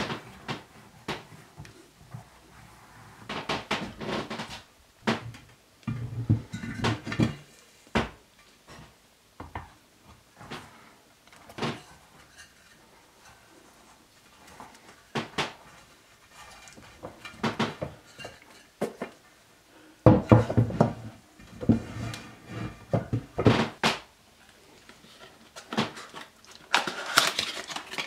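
Hands working a rubber moped tyre onto a spoked steel wheel rim on a wooden workbench: irregular rubbing, scraping and knocks of rubber and metal, with louder clatter about twenty seconds in. Near the end, a cardboard box being opened.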